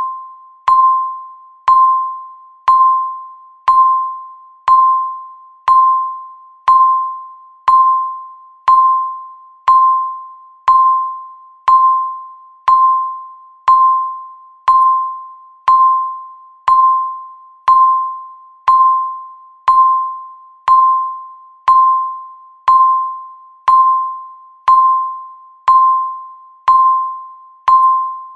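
Countdown timer's electronic beep sounding once a second: each beep a single bell-like tone with a sharp attack that dies away before the next, marking off the seconds.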